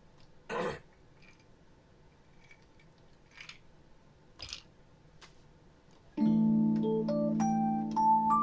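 Digital piano falls silent for a few seconds, filled only by a few short handling noises as a glass of iced drink is lifted and set back down; about six seconds in, the piano comes back in with a held chord and a melody of single notes above it.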